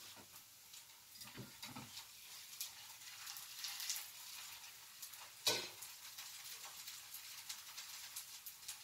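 Thin blini batter frying in oil in a frying pan, a faint sizzle with small crackles. A single sharp knock about five and a half seconds in.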